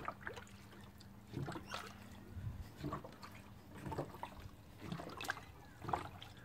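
Faint, irregular gurgling and bubbling of coolant water in a car's radiator as a rubber radiator hose is squeezed by hand, forcing trapped air up through the filler neck into an upturned bottle of water: air being bled from the cooling system.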